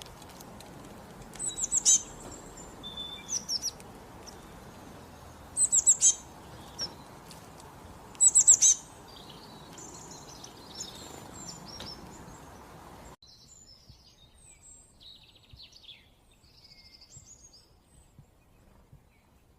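Songbird singing in short bursts of quick, high, falling notes, with four loud bursts over a steady background hiss. About two-thirds of the way through, the hiss cuts off abruptly and only fainter, scattered bird notes remain.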